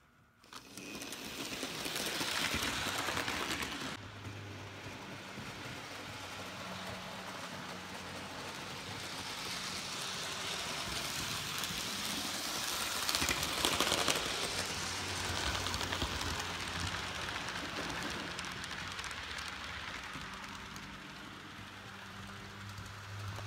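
Hornby OO-gauge model steam locomotive running on the layout's track: a steady rattle of wheels on the rails over a low electric motor hum, loudest about halfway through as it passes close by.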